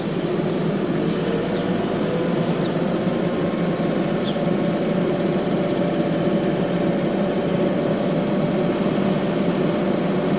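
A car driving along an asphalt road, heard from inside the cabin: steady engine hum and tyre noise, with the engine note rising slightly about a second in.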